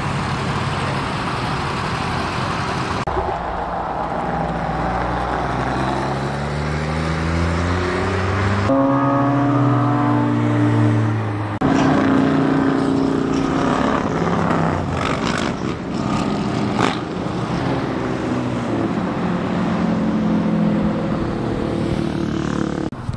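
Vehicles driving past one after another, engines running and accelerating, their pitch rising and falling as they pass. The sound changes abruptly several times as one vehicle gives way to the next. Among them are a lifted Ford Super Duty pickup, a touring motorcycle and a C8 Corvette.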